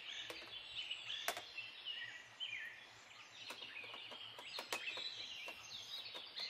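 Small birds chirping faintly and repeatedly, with a few light clicks and taps as bottles are handled on a table.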